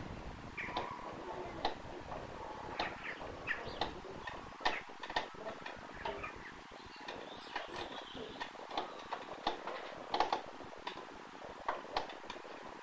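Irregular light clicks and taps, a few each second, with no engine or starter running.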